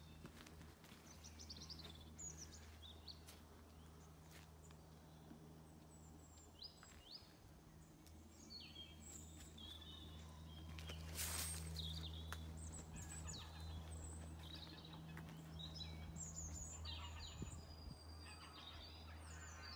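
Several small birds chirping and trilling in woodland, many short calls overlapping, busier in the second half, over a faint low steady hum. A brief rush of noise about eleven seconds in is the loudest moment.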